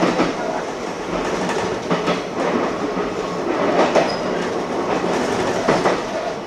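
Kintetsu electric train running along the track, heard from inside the front of the car: a steady rumble from the wheels and running gear, with irregular sharp knocks as the wheels pass over the track.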